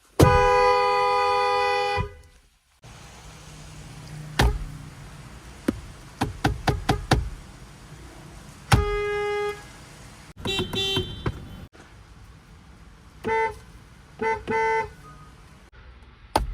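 Nissan and Infiniti car horns sounded one car after another. First comes one long two-tone honk lasting about two seconds, then a shorter honk, and near the end a run of quick short taps, with a few clicks in between.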